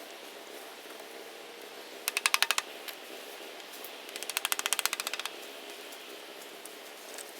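Two short runs of rapid mechanical clicking, about fifteen clicks a second: a brief one about two seconds in and a longer one about four seconds in, over a steady low hum.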